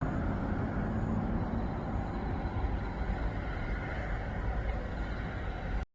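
Steady outdoor background rumble, strongest in the low range, with no distinct events and no speech.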